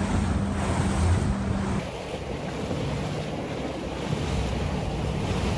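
Wind on the microphone over the low, steady running of a fishing boat's engine and water noise. About two seconds in, the sound changes and drops a little quieter.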